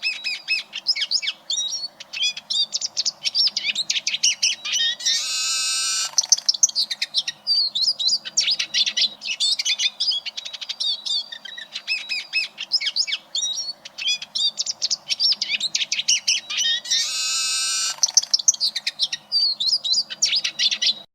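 Eurasian siskin singing a fast, continuous twittering song, broken twice by a long wheezy buzzing note, about five seconds in and again near seventeen seconds.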